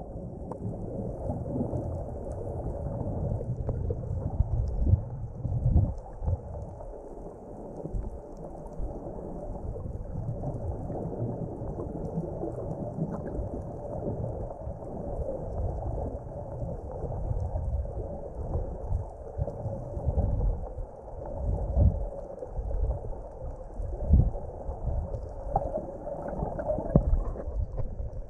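Muffled underwater rumbling and sloshing of water heard through an underwater camera, swelling and fading irregularly, with a faint steady hum underneath.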